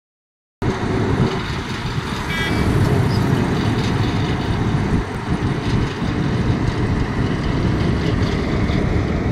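Heavy road-paving machinery and trucks running steadily, a dense low rumble, with a short horn toot about two seconds in.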